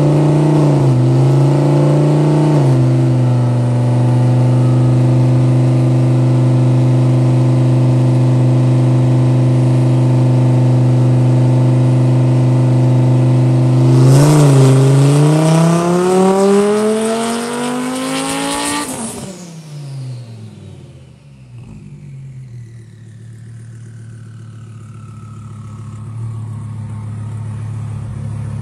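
Twin-turbo Audi R8 V10 on a hub dyno, making its first pull on 10 psi of boost. It runs steadily for about fourteen seconds, then revs up at full throttle with the pitch rising for about five seconds, and is shut off sharply at 7,000 rpm. Falling whines follow as it spins down, under a lower rumble.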